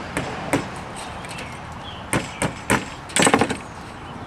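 Sharp clicks and knocks of tools working the metal spline into the channel of an Andersen window screen frame: a few single taps, then a quick loud cluster about three seconds in.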